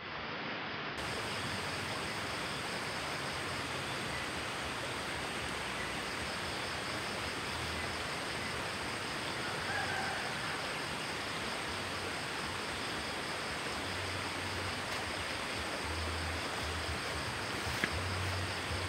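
Steady rushing of a stream running past the campsite: an even hiss of flowing water, with a thin steady high tone over it.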